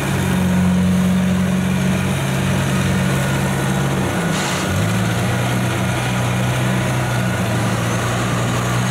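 Kubota combine harvester's diesel engine running steadily under load in a muddy rice paddy. About halfway through, the engine note dips briefly and then settles at a slightly lower pitch.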